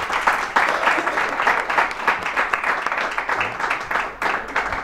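A small audience applauding: a steady patter of many people's hand claps.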